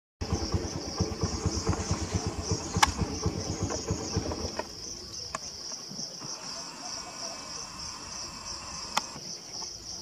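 Steady, pulsing high-pitched insect chorus. For the first four and a half seconds a low, rapid throbbing sits under it and then stops, and two sharp clicks stand out, the louder one about three seconds in.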